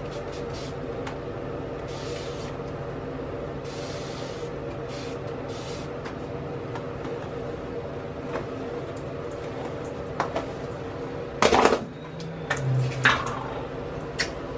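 A hand-pumped plastic spray bottle spritzing water onto hair in several short hisses during the first six seconds, over a steady hum. Later come a few knocks and clatters of bottles and a product jar being handled, the loudest about two-thirds of the way in.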